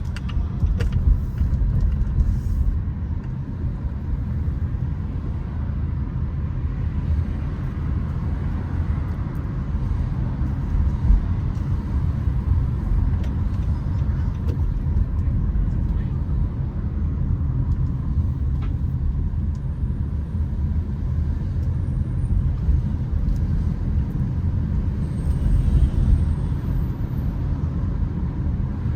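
Steady low rumble of a car driving on city streets: road and engine noise, unbroken throughout.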